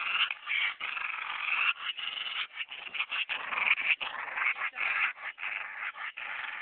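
A dog making a run of rapid, rough, breathy noises in short bursts.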